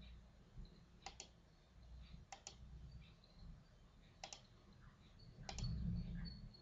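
Computer mouse button clicked four times, each a quick double tick of press and release, about a second or so apart, placing symbols in a drawing program. A faint low rumble rises under the last click.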